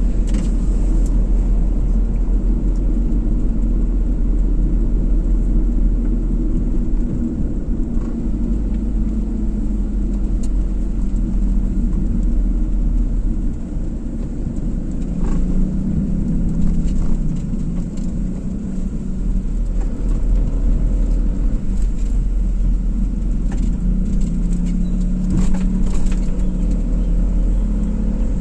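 Car driving: a steady, deep rumble of road and engine noise, with the engine note shifting a little now and then.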